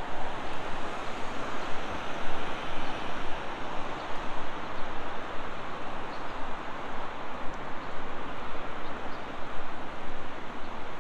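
Steady rushing noise of road traffic on a city street, with no distinct events standing out.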